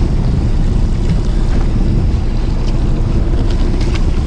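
Wind buffeting the microphone and waves washing against a fishing boat's hull, over the steady low drone of the boat's engine, in a heavy sea swell.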